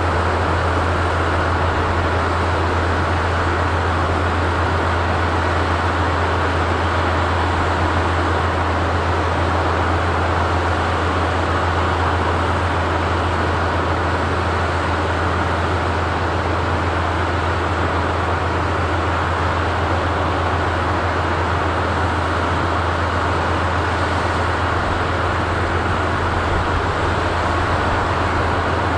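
Diesel train engines idling at a standstill: a steady low hum with an even, unchanging noise above it.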